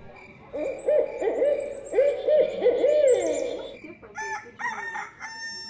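Recorded owl hooting, a run of low hoots in quick succession, played as the diorama's twilight sound cue. A few higher, shorter calls follow near the end.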